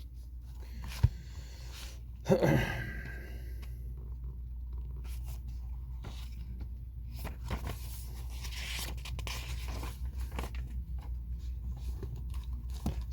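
Steady low hum with scattered soft clicks and rustling, like handling noise. There is one sharp click about a second in and a brief vocal sound a little after two seconds.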